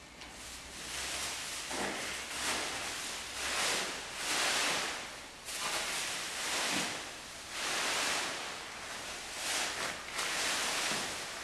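Plastic bags rustling and crinkling in a string of swells that come and go every second or so.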